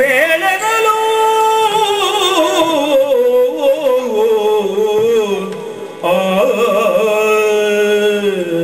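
Yakshagana Bhagavata singing a verse in a long, ornamented melodic line that falls in pitch over the first five seconds, with a new phrase starting about six seconds in, over a steady drone.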